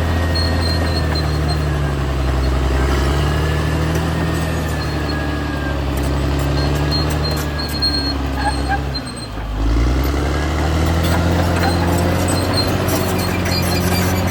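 Caterpillar D6R XL bulldozer's diesel engine running steadily under load. About nine seconds in, its note sags briefly and then picks back up. A faint high squeal comes and goes over it.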